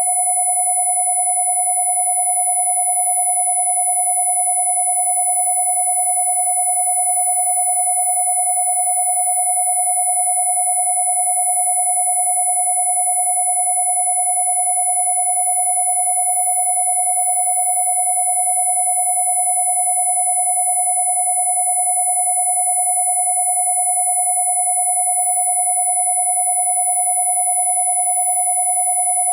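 Two steady electronic sine tones held together without change: a mid-pitched 727 Hz tone and a very high 10,000 Hz tone, with faint overtones of the lower tone. They are Rife-frequency tones.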